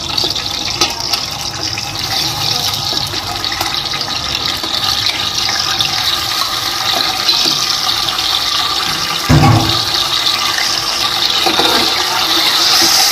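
Raw chicken pieces sizzling in hot ghee with whole spices, a steady frying hiss that grows louder near the end. A single low thump about nine seconds in.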